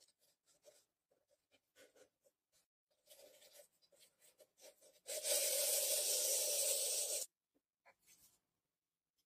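Small metal clicks and scrapes as a tin-toy clockwork motor's spring mechanism is handled, then about five seconds in a steady whirring buzz for about two seconds that cuts off abruptly.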